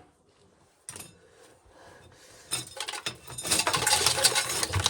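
Corn sheller being turned, its toothed wheel stripping an ear of corn with a fast mechanical rattle and clatter of kernels. A single click comes about a second in, and the rattling builds from about two and a half seconds.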